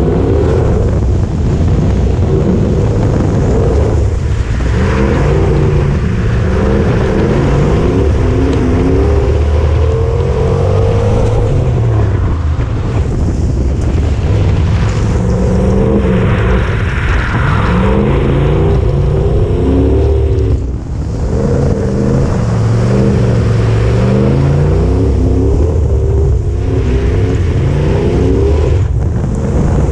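Holden VK Commodore's V8 engine revving hard while drifting, the revs climbing and falling back again and again as the throttle is worked, with a brief lift off the throttle about two-thirds of the way through. Heard from a camera mounted on the outside of the car's body.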